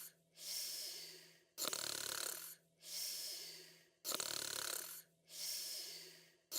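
A person snoring in sleep in a slow, even rhythm, about one breath every two and a half seconds: a rough, rattling snore on each in-breath, then a hissing out-breath.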